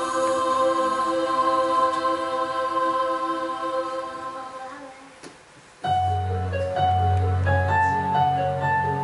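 Soundtrack music of a projected film, heard in the room: a slow, sustained choir-like passage fades out about five seconds in, then a new piece starts with a held low bass and a slow melody of separate stepping notes.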